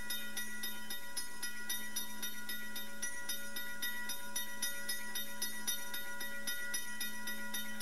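Train sound effect played from a WAV file by an mbed microcontroller through a small speaker: a hissing beat repeating about four to five times a second over a steady hum of fixed tones.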